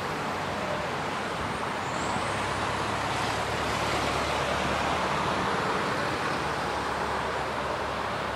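Distant city road traffic: a steady rushing noise that swells a little around the middle.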